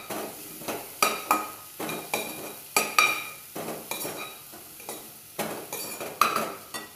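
Steel spatula stirring chopped radish pods in a kadhai, clinking and scraping against the pan about twice a second, each stroke ringing briefly. A faint sizzle of the pods frying runs underneath.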